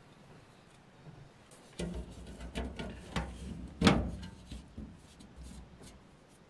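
Metal bowl knocking and scraping against the round hatch of a thin sheet-metal flour bin as flour is scooped out, the sheet rumbling with each knock. A run of clatters starts about two seconds in, with the sharpest clank near four seconds.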